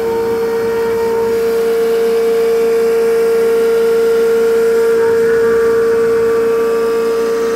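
Haas CNC mill's spindle cutting urethane pattern material with a small end mill: a steady high-pitched whine over the noise of the cut.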